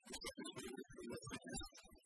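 Music made of short, choppy notes separated by brief gaps.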